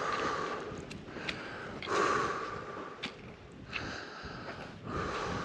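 A hiker breathing hard, with deep noisy breaths about every two seconds from the effort of a steep climb in thin air near 4,500 m. A few short sharp clicks come in between.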